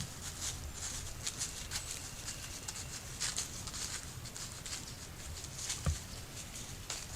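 Irregular light crackling and rustling, like something moving through dry leaves, with one soft thump about six seconds in.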